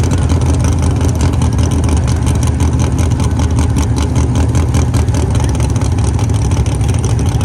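Drag race car engine running loud and steady, a low, even engine sound with no clear rise or fall in pitch.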